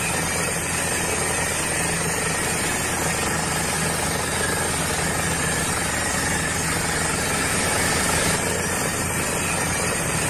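Small electric motor of a toy tractor's spiked trench-digging wheel running steadily with a low hum, as the wheel grinds through gravel and grit.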